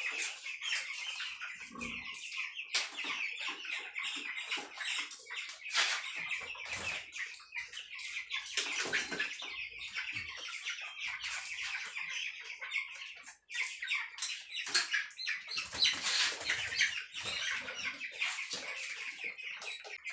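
Many broiler chickens cheeping and clucking at once, a steady chorus of short calls.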